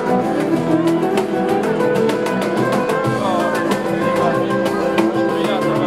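Nylon-string flamenco guitar playing fast, with rapid strummed and plucked strokes over a steady band accompaniment.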